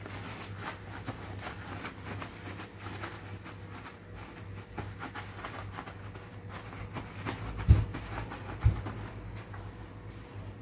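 Paper towel crinkling and patting as a raw fish fillet is dabbed dry by hand on a cutting board, with two dull thumps about a second apart late on, over a steady low hum.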